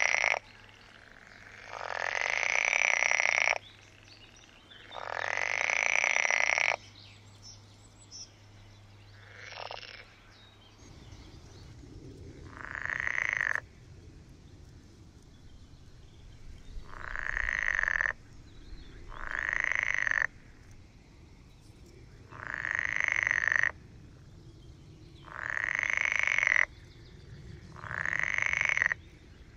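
Male green frogs (Pelophylax water frogs) calling: loud rattling croaks, each swelling for a second or two and then breaking off abruptly, repeated every few seconds with a fainter call in between.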